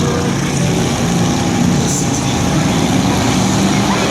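Demolition derby truck engines running loudly and steadily, with a wash of broad noise over them.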